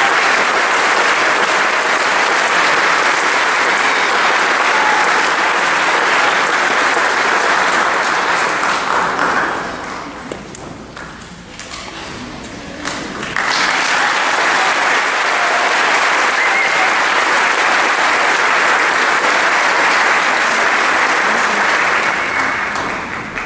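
Large audience applauding in an auditorium. The clapping dies down about ten seconds in, picks up again a few seconds later and fades near the end.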